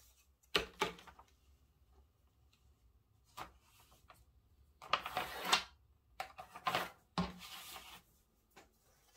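A long ruler set down on pattern paper with a sharp tap about half a second in. Later comes a run of scratchy pencil strokes drawing a line along the ruler.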